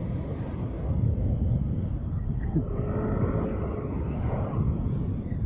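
Wind rushing over the microphone and road rumble while riding a Yamaha NMAX scooter at about 64 km/h, with a faint steady tone joining in about halfway through.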